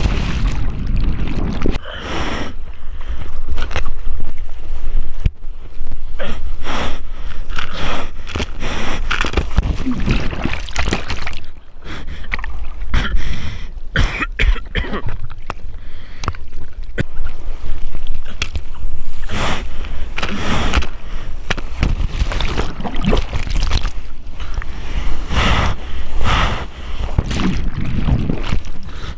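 Sea water splashing and churning right at an action camera's microphone as a bodyboarder paddles through surf and whitewater. It comes as repeated irregular splashes over a low rumble of moving water.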